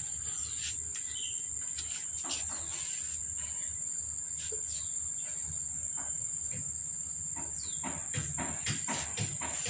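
Insects droning in a steady high-pitched shrill, with a few short falling chirps and small clicks over it, and a cluster of clicks and rustles near the end.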